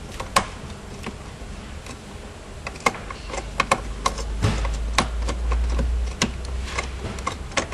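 Irregular small clicks and taps of a 15 amp circuit breaker and its wiring being handled and fitted onto a bus bar, with a low rumble for about two seconds midway.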